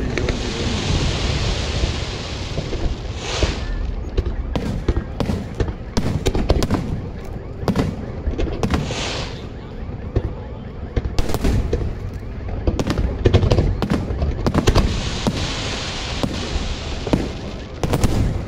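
Aerial fireworks display: shells bursting one after another in a constant run of bangs and booms over a low rumble. Several times, crackling, fizzing showers join in over the bangs, the longest about two seconds in and again near the end.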